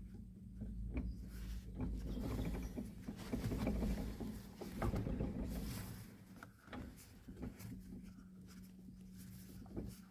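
Irregular knocks and clicks from a Lada Niva Legend's rear wheel, the sound of play in the rear wheel at low mileage, over a steady low hum.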